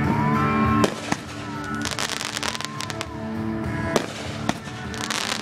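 Fireworks going off: single sharp bangs about one second in and again about four seconds in, with bursts of rapid crackling around two seconds in and near the end.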